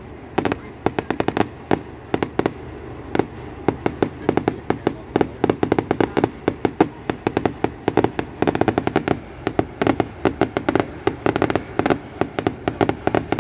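Fireworks display: a rapid, unbroken run of sharp firework bangs, several a second, growing denser about eight and a half seconds in.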